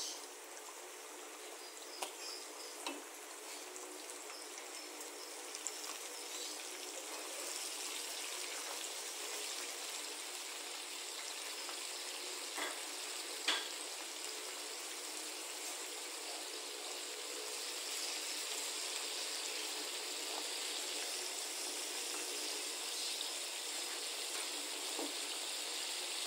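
Breaded squid pieces deep-frying in hot oil in a small stainless steel saucepan: a steady sizzle that grows louder as more pieces are dropped into the oil, with a few light clicks.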